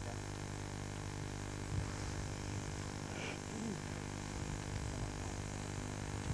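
Steady low background hiss and hum with a light low rumble, and a faint short pitched call or voice about three seconds in.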